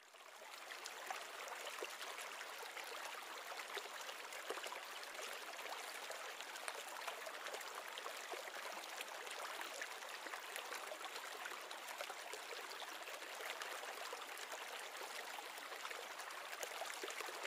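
Steady trickling and bubbling of water in a small glass-bowl reef aquarium, with a fine crackle of popping bubbles. It fades in over the first second.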